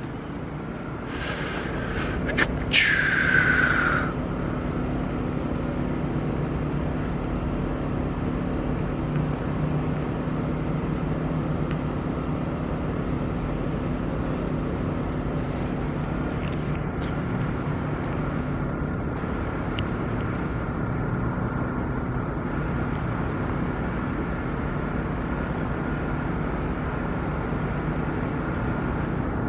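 Steady outdoor drone of idling vehicles and city background, with a constant low hum and a steady higher tone. About three seconds in comes a short, louder hiss with a whistle that falls in pitch.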